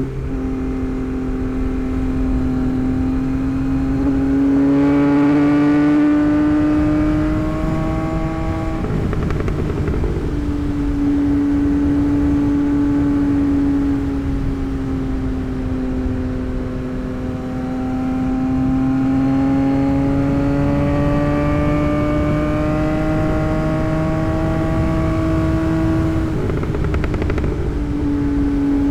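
The inline-three engine of a 2024 Yamaha MT-09 with an aftermarket tune, running under way at a steady road pace, its note rising and falling slowly. The note breaks off briefly twice, about nine and about twenty-seven seconds in.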